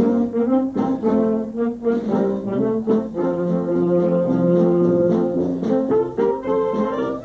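A wind band playing, with the brass in front: a passage of held chords and moving notes.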